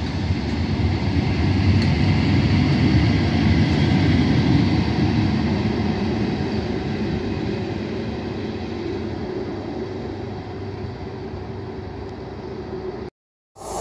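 Diesel power cars of an HST (InterCity 125) running as the train moves away along the platform. The engine sound is loudest in the first few seconds and fades steadily as it recedes. It cuts out abruptly for a moment near the end.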